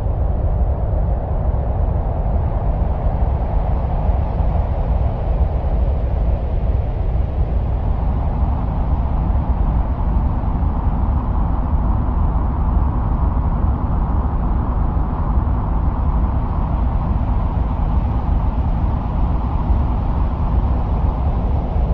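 Steady wind-like rumble of a Mars soundscape, heaviest in the deep lows, with a hiss in the middle that slowly swells and eases.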